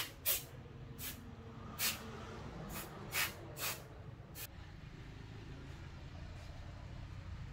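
About seven short, sharp hissing bursts in the first four and a half seconds, then a low steady hum.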